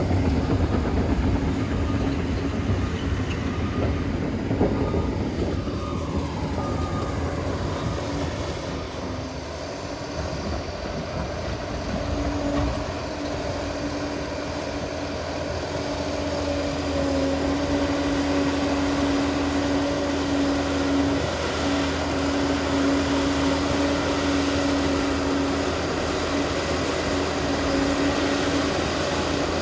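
Liebherr PR 746 crawler dozer running and moving on its steel tracks, with a steady low rumble. A steady whine joins in partway through.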